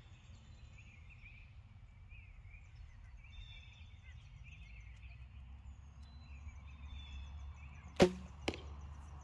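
A wooden-arrow shot from a zebrawood longbow whose string carries cat-whisker silencers. After several seconds of quiet with faint birdsong, the string releases with one sharp thump about eight seconds in. Half a second later comes a softer smack of the arrow striking the target.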